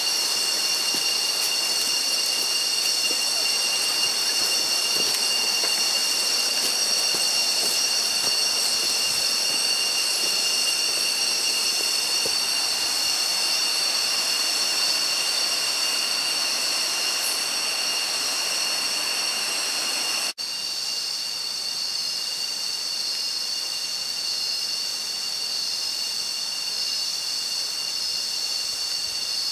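Chorus of cicadas and other rainforest insects: a steady, shrill drone made of several high pitches held without a break. It cuts out for an instant about twenty seconds in, then carries on slightly quieter.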